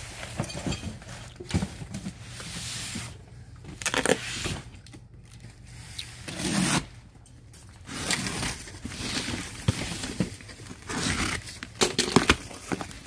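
Cardboard carton and bubble wrap rustling and scraping as they are handled, then a box cutter slitting packing tape on a cardboard carton, with tape tearing and flaps pulled open near the end.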